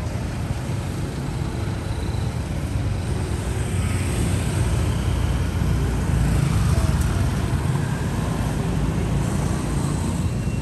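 Steady outdoor street noise of passing road traffic, a continuous low rumble without distinct events.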